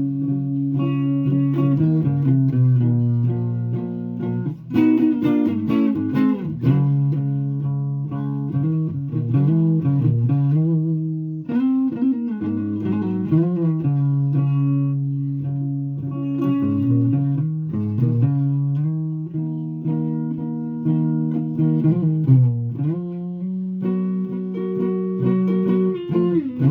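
A guitar played solo in a loose jam: held notes and chords that slide from one pitch to the next, with a few sharper strummed attacks.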